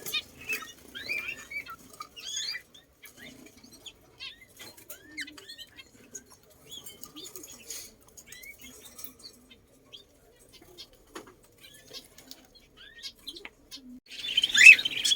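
Small birds chirping and twittering in short, quick calls, with scattered clicks and rustles; the chirping gets much louder near the end.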